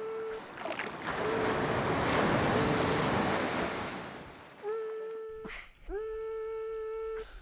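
Surf washing in over the shore, loudest through the middle. A steady held tone sounds at the start and twice near the end, each time sliding up into the note.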